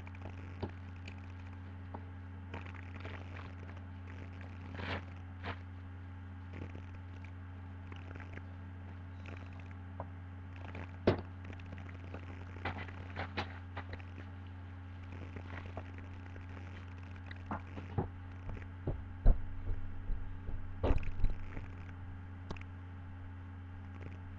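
A steady low hum throughout, with scattered rustles, crinkles and clicks of packaging being handled, and a run of louder knocks and thumps about 18 to 22 seconds in.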